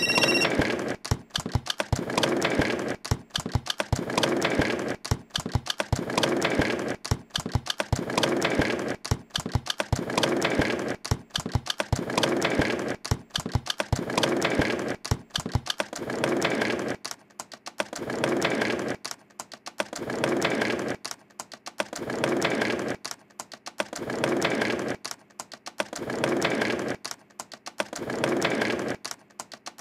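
Typing on a keyboard: rapid keystroke clicks in bursts about a second long, broken by short pauses, falling into a regular rhythm of about one burst every two seconds in the second half.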